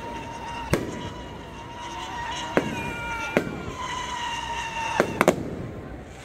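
Firecrackers going off outdoors: scattered sharp bangs, six in all, the last three in quick succession near the end, over a steady high tone.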